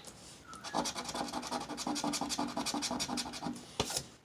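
A scratch-off lottery ticket being scratched fast, in quick even strokes about ten a second, with a couple of sharper scrapes near the end.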